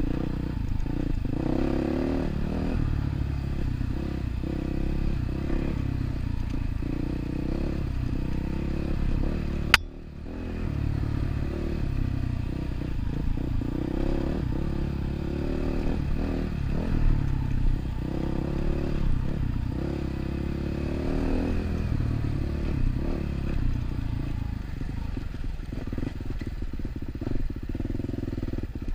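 Dirt bike engine running under load on a rocky trail, its revs rising and falling with the throttle. There is one sharp click about ten seconds in, after which the engine sound briefly dips.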